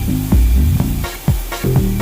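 Background music with a pulsing bass line and a steady drum beat.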